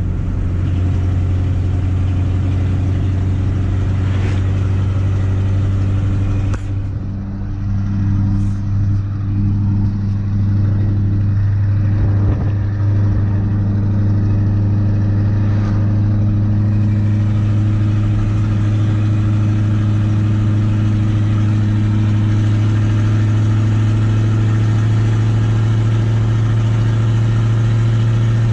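The 6.2 liter Detroit diesel V8 of a 1985 GMC 3500 pickup running steadily under way. Its note drops about six seconds in and builds back up over the following few seconds.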